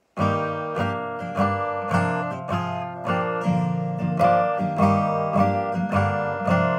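An acoustic guitar with a capo is strummed in a steady rhythm, playing the instrumental intro to a song, and changes chord a few times.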